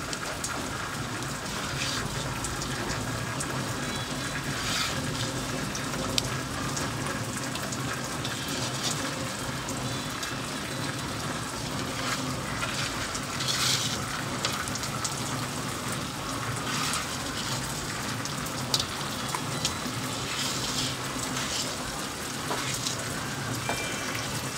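Rain falling in a steady hiss, with scattered drips and light clicks.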